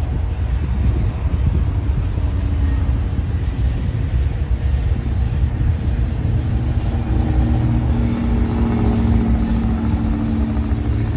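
Covered hopper cars of a freight train rolling past: a steady low rumble of steel wheels on the rails. A steady humming tone joins in about seven seconds in.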